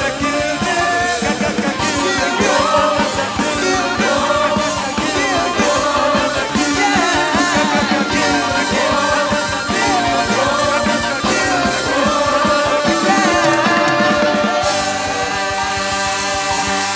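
Choir and male solo voices singing live over a band of keyboard, bass guitar, electric guitar and drum kit, with the voices settling into long held notes in the last few seconds.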